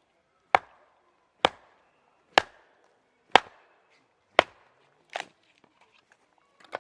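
Firewood being chopped: five sharp strikes on wood about a second apart, then two weaker knocks near the end.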